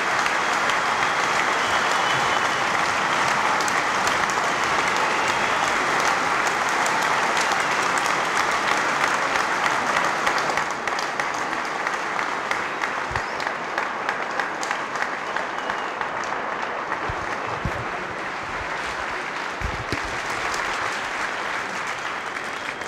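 Large audience applauding steadily, the clapping easing off a little about halfway through and dying away at the very end.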